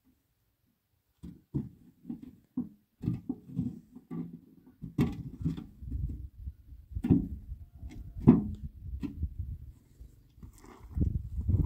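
Irregular scraping strokes and knocks of a long-handled squeegee spreading liquid bitumen over a roof and dipping into a bucket, with a few sharper clinks; they start about a second in.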